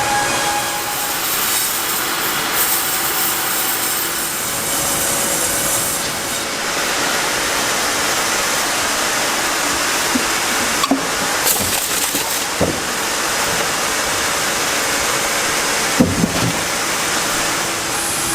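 Woodworking machinery running steadily on wood, a continuous rushing noise, with a few short knocks in the second half.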